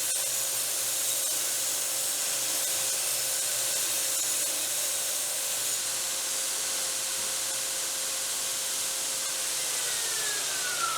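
TW90 belt grinder running, its belt grinding railroad-rail steel stock with a steady hiss over a steady whine. Near the end the motor is switched off and its whine falls in pitch as it spins down.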